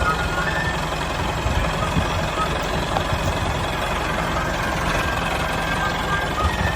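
A small engine or motor running steadily with a fast, even knocking beat.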